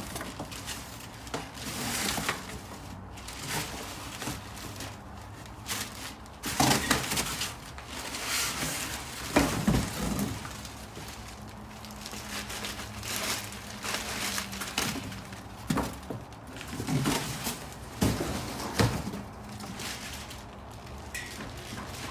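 A cardboard box and its packing being handled and pulled apart to unpack a steel dip attachment: irregular crackling and rustling with several sharp knocks.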